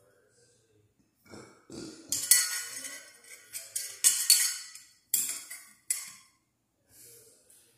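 Metal parts of a ceiling fan clinking and scraping: a bowl-shaped metal cover being worked onto the metal down rod, with several sharp knocks that ring briefly. The noises start about a second in, are loudest around two and four seconds, and stop about six seconds in.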